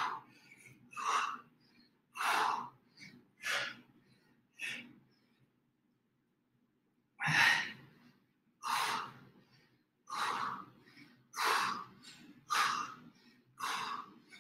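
A man's short, forceful exhalations in rhythm with a workout exercise, about one a second, with a pause of a couple of seconds midway.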